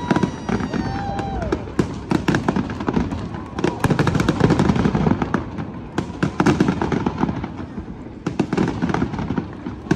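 Fireworks exploding in a dense, continuous run of bangs and crackles.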